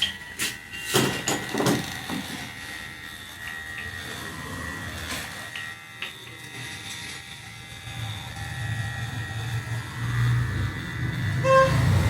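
Street traffic: a vehicle's engine rumble builds over the last few seconds and a short horn toot sounds near the end. A few sharp smacks come in the first two seconds.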